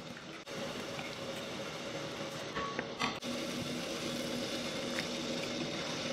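Water at a rolling boil in a wok, bubbling, over a steady low hum.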